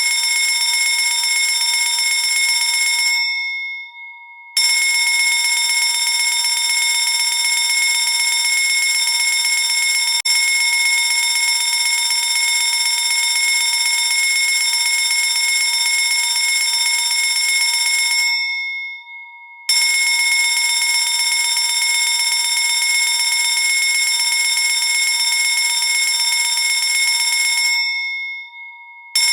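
Electric fire alarm bell ringing loudly and continuously. It stops three times, its ring dying away over a moment, and starts again abruptly after about a second and a half.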